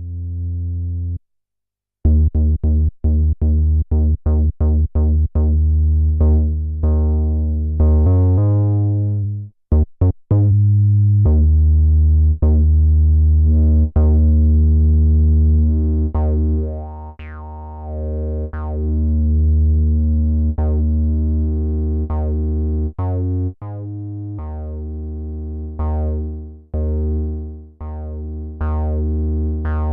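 Akai Timbre Wolf analog synthesizer playing a bass line: one short note, a brief pause, then a run of quick staccato notes followed by longer held notes whose tone sweeps up and down.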